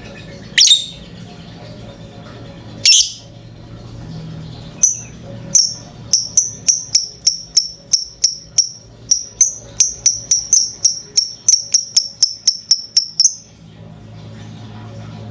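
Lovebird calling: two loud shrill calls, then a long rapid series of short, high chirps at several a second, typical of the excited call played to set other lovebirds singing.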